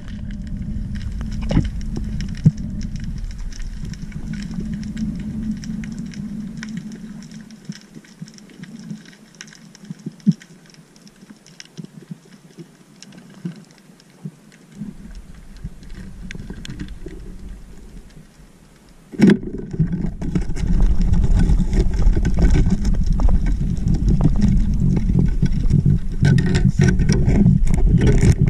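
Underwater sound through a sealed camera housing: low water rumble with scattered crackling clicks. A sharp knock comes about nineteen seconds in, after which the rumble and crackle are much louder.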